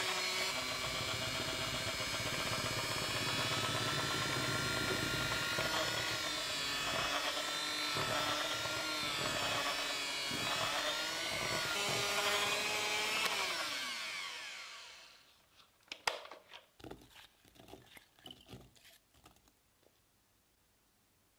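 Electric hand mixer running with its beaters in thick cake batter, the motor whine wavering in pitch as the load changes. About 14 s in it is switched off and winds down with a falling pitch, followed by scattered light clicks and taps of a fork stirring apple chunks into the batter in a glass bowl.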